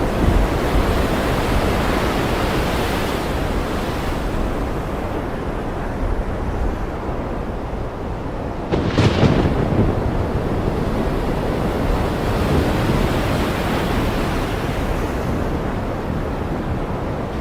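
Ocean surf washing in a continuous rush that swells and eases, with a sudden louder surge about halfway through.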